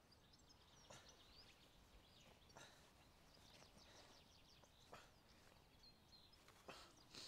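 Near silence: faint birdsong of many short chirps, with a few soft rustles.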